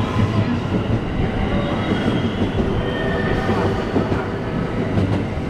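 JR West electric commuter train moving through the station platform: a steady rumble of wheels on rail, with a few faint high tones drifting over it.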